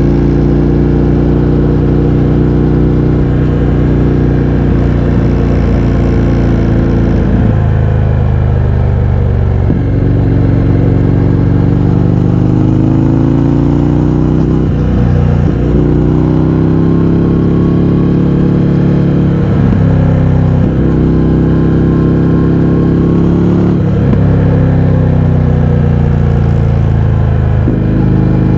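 Indian FTR 1200's V-twin engine through a baffle-less Akrapovič exhaust, riding under way: the note climbs and falls, broken by about six gear changes.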